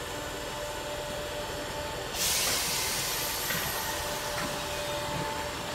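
Merseyrail electric train standing with a faint steady hum. About two seconds in comes a sudden loud hiss of compressed air that fades over a second or two, typical of the air brakes releasing just before the train pulls away.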